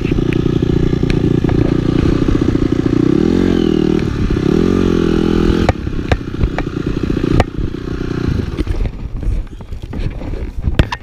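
Off-road motorcycle engine running, revving up and back down twice in the middle, then dropping suddenly to a low idle about halfway and fading out a few seconds later, leaving scattered clicks and knocks.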